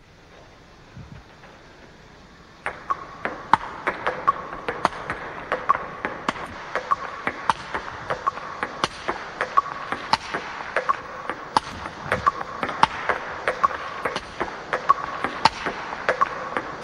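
Table tennis rally: the ping-pong ball clicking off rubber paddles and bouncing on the table in a quick, steady rhythm during shakehand backhand drives, each hit with a short ping. It starts almost three seconds in.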